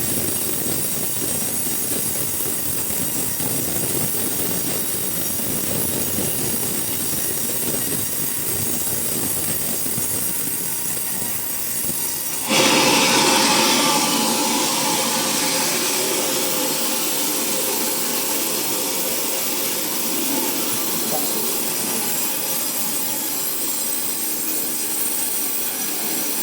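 Sawmill running and cutting coconut wood. About halfway through, the noise turns suddenly louder and higher-pitched, then settles into a steady run.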